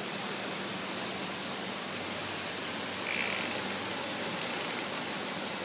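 Rotating lawn sprinkler head spraying water: a steady hiss, with a brief louder spray about three seconds in and again a second or so later.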